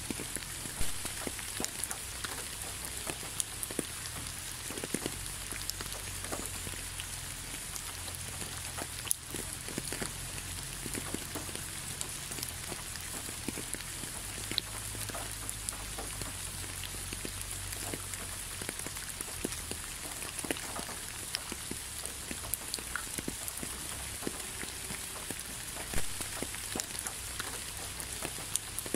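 Steady rainfall: an even hiss of rain with many individual drops ticking close by, a couple of them a little louder, about a second in and near the end.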